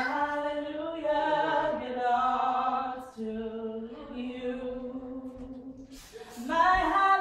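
Two women singing gospel a cappella, with long held notes in slow, drawn-out phrases and a short break about six seconds in before the next phrase begins.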